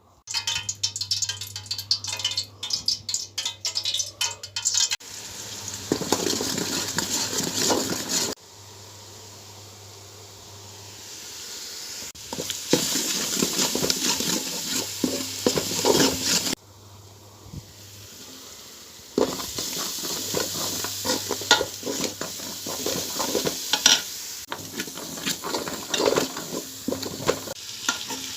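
Food sizzling and frying in a pot of oil while a spoon stirs and scrapes against it, with many small clicks. The sound changes abruptly several times as one short stretch gives way to the next.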